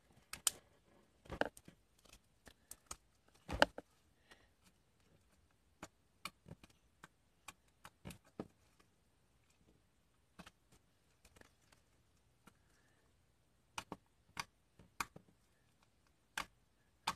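Hands kneading, poking and folding slime on a tabletop: irregular sticky clicks and pops, spaced a fraction of a second to a few seconds apart, the loudest about three and a half seconds in.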